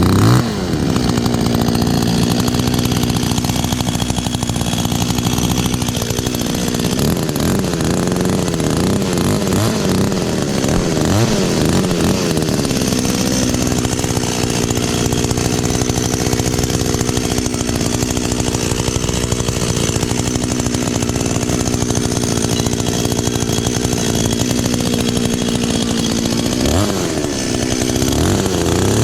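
Kyoritsu two-stroke chainsaw running at high revs, its engine note dipping and recovering a few times, about six seconds in, around eleven seconds and near the end.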